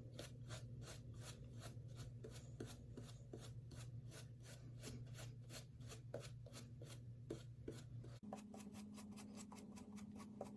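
Synthetic shaving brush rubbing shave soap onto a face in quick, even strokes, about four a second, over a steady low hum.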